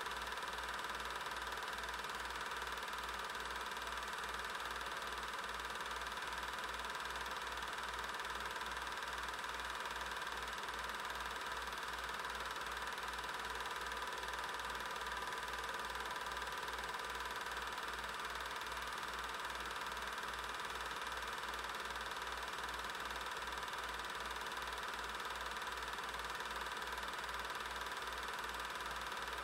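Steady mechanical running noise with hiss, a steady hum and a low pulse about twice a second, typical of an 8mm film projector running while silent film is shown and transferred.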